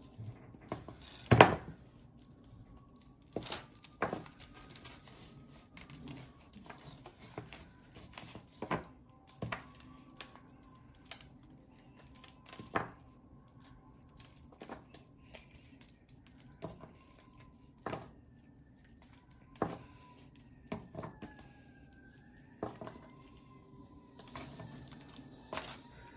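Hardened peppermint bark of dark and white chocolate being snapped by hand into pieces: sharp cracks at irregular intervals, the loudest about a second and a half in, with pieces clicking down onto parchment paper. A faint wavering tone sounds in the background.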